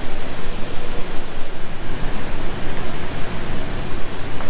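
Hot oil sizzling in a steady, even hiss as a batch of matchstick french fries deep-fries.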